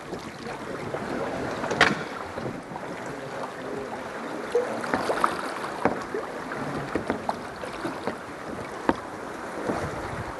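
Water sloshing and splashing around a kayak on the sea, with wind on the microphone and several sharp splashes or knocks scattered through, the loudest about two seconds in.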